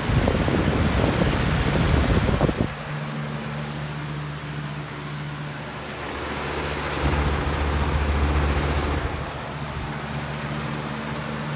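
Lasko premium box fan with an 8-pole motor running on high: a steady rush of air over a low motor hum. Its airflow buffets the microphone in gusts for the first few seconds and again about seven to nine seconds in.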